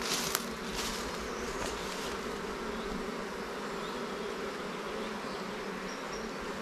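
Honeybees buzzing around an open hive, a steady dense hum, with a couple of sharp clicks at the very start.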